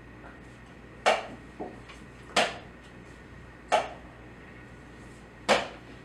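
Sharp clacks of wooden chess pieces set down on a wooden board and a chess clock being pressed in quick blitz play: four loud knocks a little over a second apart, with a fainter one just after the first.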